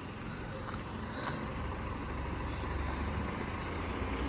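Diesel bus engine running as the bus manoeuvres, its note growing slowly louder, with a couple of faint clicks about a second in.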